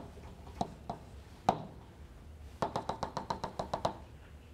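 Chalk tapping and clicking against a blackboard as lines and letters are drawn: a few separate taps, then a quick run of about eight taps a second in the second half.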